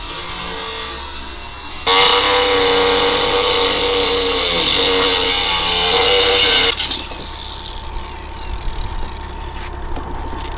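Cordless angle grinder cutting through steel, running loud with a steady high whine for about five seconds from about two seconds in, then cutting off suddenly.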